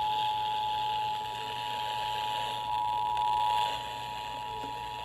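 Emergency Alert System attention signal: the steady two-tone 853 and 960 Hz alarm, received off a broadcast radio station with a hiss of background noise.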